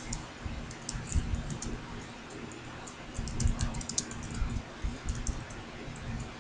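Typing on a computer keyboard: quick, irregular keystrokes, a scattered run of taps that thickens into a faster flurry about three seconds in.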